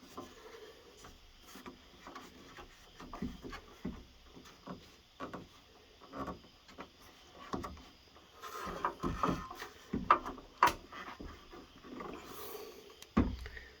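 Rubber window gasket being worked into a truck door's window channel with a blunt flat-tip screwdriver: scattered clicks, taps and rubbing, busiest about nine seconds in, with a louder thump shortly before the end.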